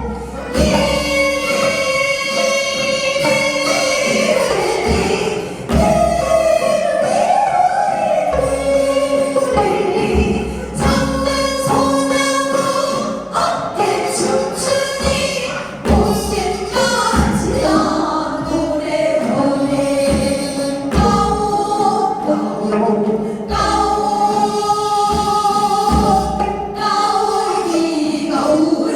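Voices singing a Korean folk song (minyo), long notes with wavering vibrato and sliding pitch, over low drum beats.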